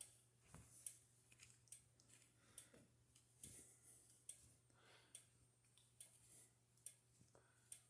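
Faint, regular clicking, one sharp click a little under every second, over a steady low hum.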